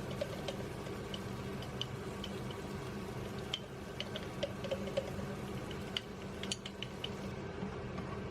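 Scattered light clicks and ticks, irregularly spaced, over a steady low hum.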